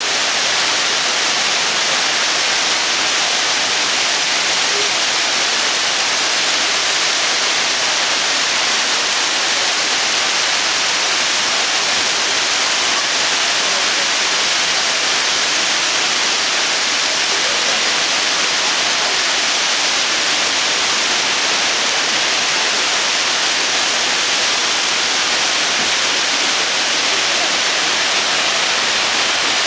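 Heavy rain falling, a steady hiss that neither builds nor eases.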